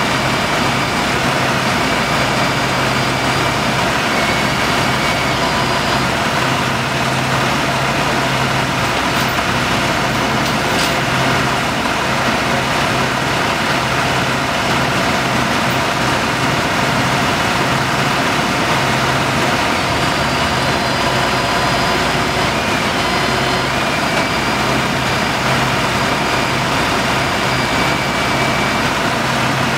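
Heavy diesel truck engines idling steadily, a loud even engine sound that holds unchanged throughout.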